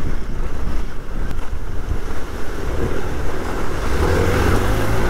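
Wind buffeting the microphone of a moving off-road motorcycle, with a low engine rumble underneath. A rushing splash of water grows louder from about three seconds in.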